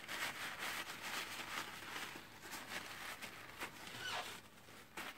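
Paper towel rustling and rubbing in irregular strokes as grease is wiped off a metal part by gloved hands, with a short squeak about four seconds in.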